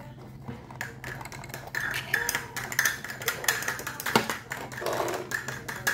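Small plastic toy pieces clicking and tapping as a toy refrigerator's doors are shut and handled, with a sharper click about four seconds in.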